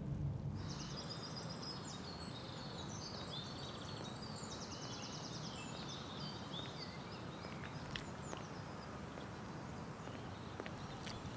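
Birds chirping and trilling in quick, overlapping calls over a steady low outdoor ambience; the birdsong dies away about two-thirds of the way through, leaving the ambience and a few faint clicks.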